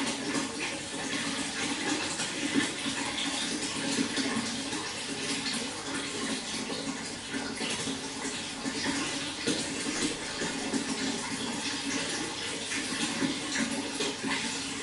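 Running water pouring and splashing steadily into water, a continuous rush with many small splashes.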